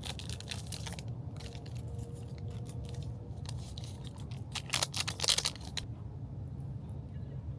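Crunching and scraping crackles from the undercooked instant ramen noodles being handled and stirred in their container, with a louder cluster of crackles about five seconds in.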